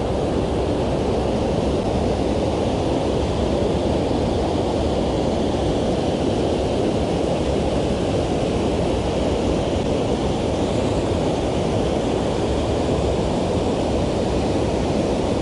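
Steady rush of water pouring over a low dam spillway into a creek, a constant deep noise with no change.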